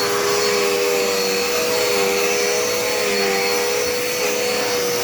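Dirt Devil Endura Reach upright vacuum cleaner running steadily, a motor hum over airflow hiss whose pitch wavers slightly as it is pushed along.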